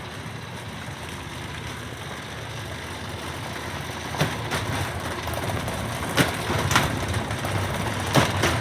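Washing machine spinning fast with its door off, a steady rumble and rattle that grows slowly louder. Several sharp knocks of things hitting inside the drum come in the second half.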